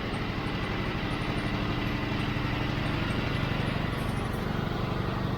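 Engine of a Norwood HD36 portable sawmill running steadily.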